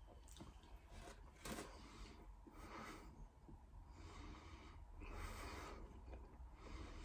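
Faint nasal breathing of a person eating, a soft breath every two to three seconds, with a light click about a second and a half in.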